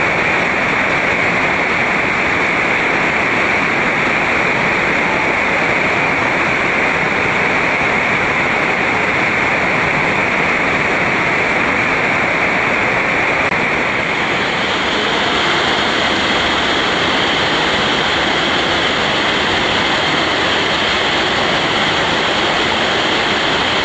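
Steady, loud rushing of water cascading through a sinkhole cave, an underground stream or waterfall, with the hiss shifting slightly higher about halfway through.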